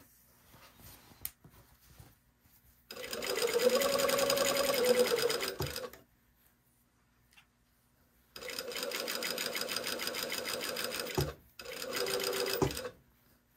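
Sewing machine running a straight topstitch around a knit neckline facing, in three runs: about three seconds, another three seconds, then a short one of about a second, with quiet pauses between them while the fabric is repositioned. Each run is a fast, even patter of needle strokes over the motor's hum.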